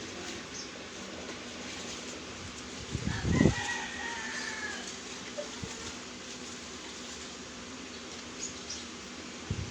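A rooster crows once, about three seconds in: one long call that sags slightly in pitch at the end. A dull low thump comes as the crow begins, over a steady background hiss.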